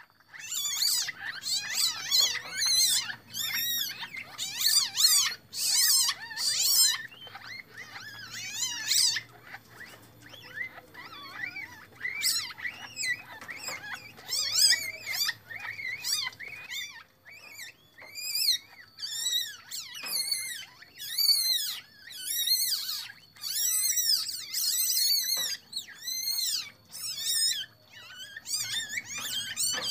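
Newborn Asian palm civet kits squeaking: a rapid run of short, high-pitched calls that rise and fall, coming in bouts with brief pauses.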